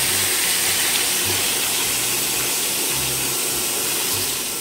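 Water being poured into a hot wok where chicken is frying in chili paste: a steady, even rush of sound.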